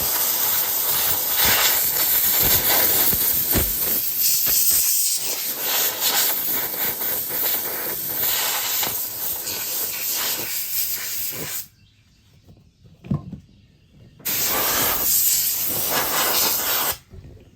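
Can of compressed air spraying in a long hissing blast of about eleven seconds, stopping, then a second shorter blast of about three seconds near the end.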